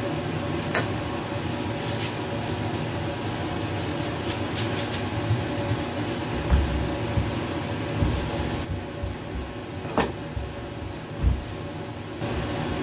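Steady mechanical hum, with a sharp click about a second in and another near ten seconds, and several low thumps in the second half.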